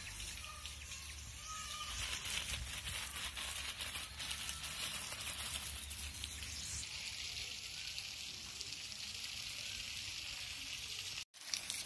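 Water sprayed from a hose onto curry leaf foliage and soil: a steady splashing hiss with the patter of many drops. It cuts out for an instant near the end.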